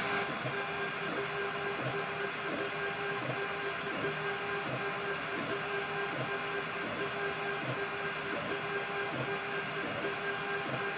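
K8200 3D printer running, its stepper motors giving a steady whine broken into short, evenly repeated pulses as the head makes a run of small moves.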